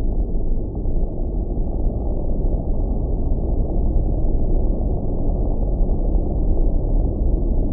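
A steady low rumble with no clear pitch or rhythm, unchanging throughout.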